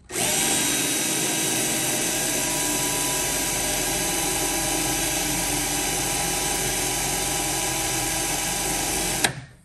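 Cordless drill running steadily under load, boring a pilot hole through the sheet metal of a Honda Accord's trunk lid, then stopping suddenly near the end. The metal is slow to cut: 'some strong metal, or this is a weak drill.'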